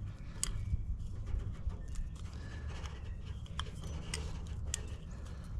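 A few sharp scattered clicks of a tail light bulb and its socket being handled, over a steady low rumble.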